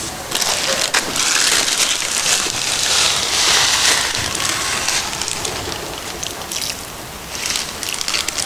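Dry feed pellets being poured into water, a dense pattering and rattling that thins out about seven seconds in, then picks up again near the end.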